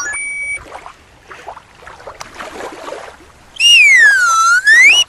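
A loud slide-whistle sound effect that glides down in pitch and back up over about a second and a half, near the end. A short bright chime sounds right at the start, with faint background noise in between.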